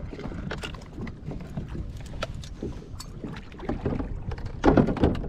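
Small clicks, knocks and scrapes of fishing gear being handled on a kayak, with one louder burst of noise near the end.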